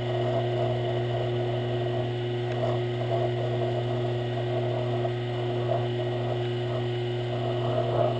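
Sherline metal lathe running steadily with a motor hum, while a hand file scrapes against the spinning brass rod in its chuck.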